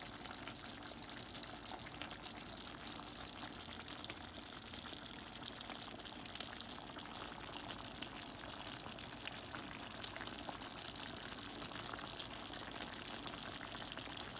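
Pinakbet simmering uncovered in a pan, its thick sauce bubbling steadily with many fine crackles and pops.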